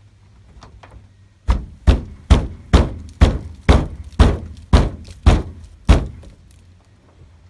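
Ten sharp taps, about two a second, on the seized sliding-door hinge pivot of a 1977 VW Type 2 bus, tapping the frozen pivot to work it loose.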